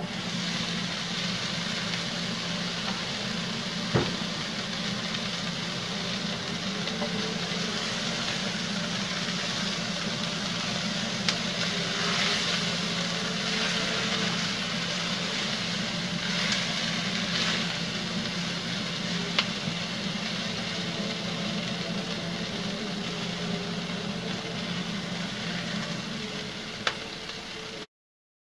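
Sliced brown mushrooms and onion sizzling in a frying pan: a steady frying hiss over a low hum, with a few sharp clicks scattered through it. It cuts off suddenly near the end.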